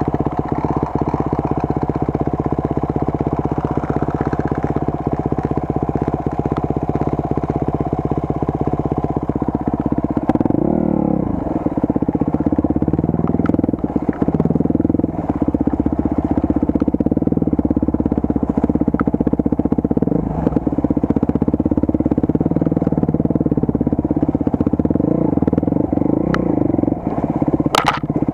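Enduro motorcycle engine running at a steady pitch, then from about ten seconds in revving up and down as the throttle is worked. There is a sharp knock near the end.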